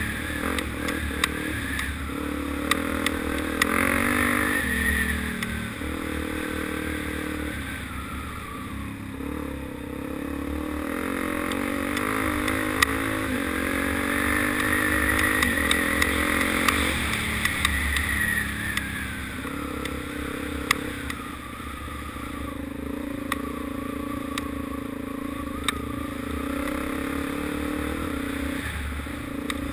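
Suzuki DR-Z400 dirt bike's single-cylinder four-stroke engine running under riding load, its revs rising and falling, with scattered sharp clicks.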